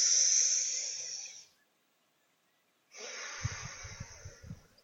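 A long, deep breath drawn in close to the microphone, a steady airy hiss that fades out after about a second and a half. After a second of silence, a second breath follows, with puffs of air popping against the microphone.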